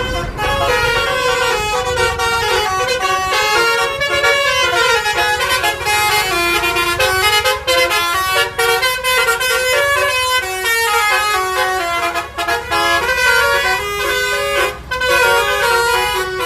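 Basuri 'telolet' multi-trumpet horn playing a rapid chattering tune of short notes that jump up and down in pitch, several tones sounding together. A low engine rumble sits under it in the first second or so.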